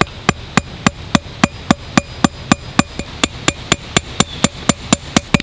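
A choked-up axe tapping small hardwood pegs into the end grain of a stump, steady light knocks about four times a second.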